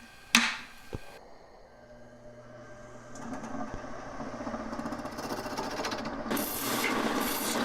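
A click, then a wood lathe starting up and running with a steady hum that grows louder as it gains speed. About six seconds in, a turning tool starts cutting the spinning resin-and-wood bowl, a louder rough scraping.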